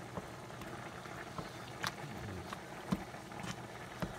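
Oven-roasted cherry tomatoes in hot oil and feta being crushed under an oven-mitted hand in a baking pan: soft squishing with a few short, sharp pops as the tomatoes burst.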